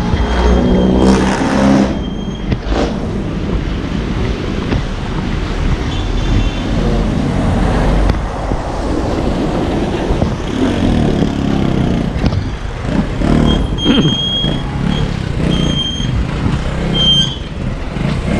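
Roadside traffic on a wet road: motorised tricycles, motorcycles and trucks passing, their engines swelling as they go by.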